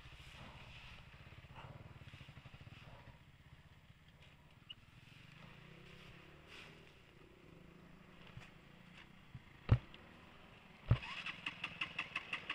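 Dirt bike engine idling faintly with a low, steady rumble, broken by two sharp knocks about ten and eleven seconds in. Near the end a motorcycle engine grows louder in quick, regular pulses.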